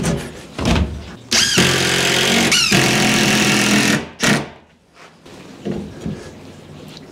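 A handheld power tool's motor spins up with a rising whine about a second in and runs steadily for nearly three seconds, with a second rise partway through. A short burst follows just after it stops, and a few knocks come before it.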